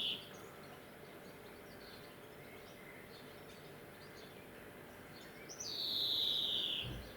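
Male European greenfinch giving its drawn-out wheeze: the tail of one wheeze at the start, then a second long, slightly falling wheeze of about a second and a half near the end, with faint short chirps between.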